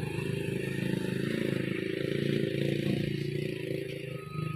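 Diesel engine of an orange Mitsubishi Fuso 220 PS truck running steadily at low revs while the truck sits slid into the roadside ditch on a slippery mud road.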